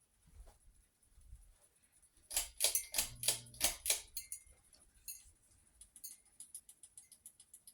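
Hunter ceiling fan running with a faint steady high whine. A run of about six loud clicks comes a little past two seconds in, then lighter, quicker regular ticking.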